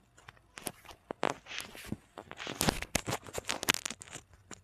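A chiropractor's hands working over the patient's body and clothing during an adjustment: scattered scrapes and clicks, turning about two seconds in into a dense run of crackling clicks.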